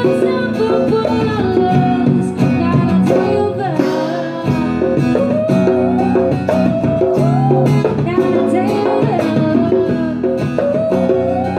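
Live acoustic trio playing a song: a woman's voice singing the melody over strummed guitar and a hand-played djembe.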